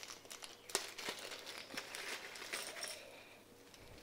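Small clear plastic zip bag crinkling as it is handled and opened by hand, a run of short crackles that thins out and fades near the end.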